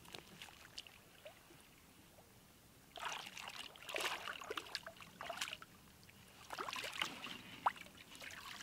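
Lake water splashing and sloshing around a wading angler and a carp sling as a large mirror carp is released from it and the dripping sling is lifted out. The splashing comes in two short bouts, about three seconds in and again around seven seconds.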